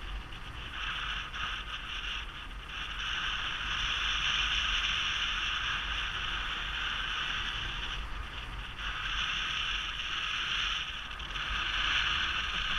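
Airflow rushing over the microphone of a paraglider in flight, a steady hiss that grows louder a few seconds in and drops away briefly twice near the end.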